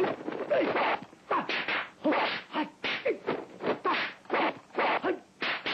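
Kung fu film fight sound effects: a rapid run of punch and kick whacks and swishes, about two a second, mixed with short cries from the fighters.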